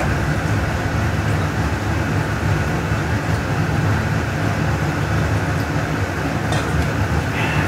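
Steady low hum and rush of air from the room's air-handling equipment.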